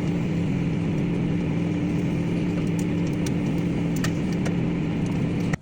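Microwave oven running with an egg inside: a steady hum with a few sharp ticks, cutting off abruptly at the very end.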